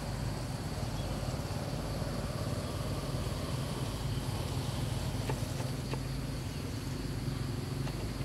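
A steady low hum, with a faint high steady whine above it and a few soft clicks in the second half.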